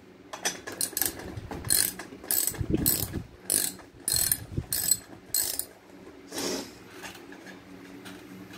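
Socket wrench ratcheting while loosening a rear wheel nut on an RC car's axle: a run of sharp clicks, about two a second, that stops about six seconds in.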